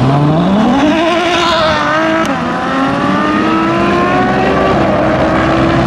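A Ferrari F12tdf's naturally aspirated V12 and a McLaren Senna's twin-turbo V8 launching side by side in a standing-start drag race and accelerating hard. The engine note climbs in pitch and steps down at each upshift.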